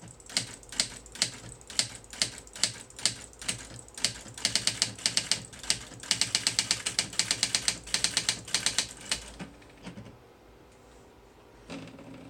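Typewriter keys being struck: separate keystrokes at first, then quicker runs of typing, stopping about nine seconds in, with a short softer mechanical sound near the end.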